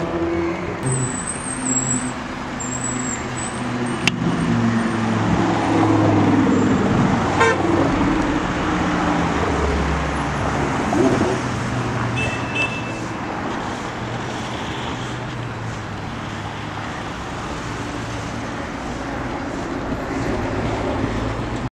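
Sports car engines running and revving as the cars drive past on a city street, over steady traffic noise. A short car horn blast sounds about halfway through.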